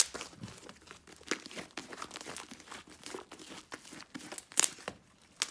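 Slime mixed with crunchy modelling foam being kneaded and squeezed by hand, crackling and popping in a dense stream of small crackles. A sharper, louder snap comes near the end.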